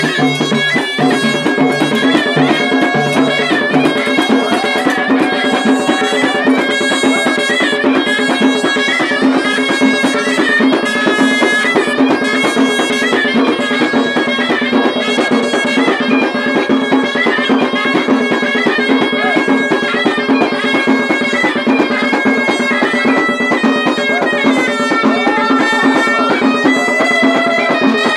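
Moroccan ghaita (double-reed shawm) playing a Hit Gharbaoui folk melody, loud and reedy, over a steady held low tone and regular drum beats.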